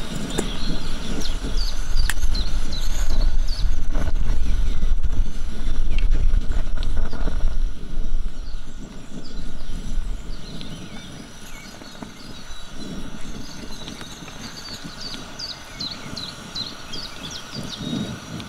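Small birds chirping in short, repeated high notes over a loud low rumble that fades out about ten seconds in, with a few sharp clicks near the start.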